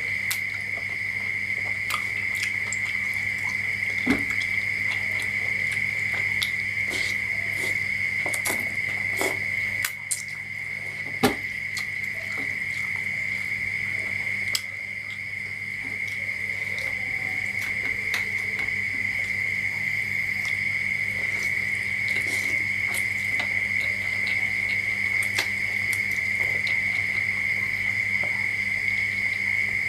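A steady high-pitched whine runs throughout, with scattered short wet clicks and smacks of a person eating noodles by hand.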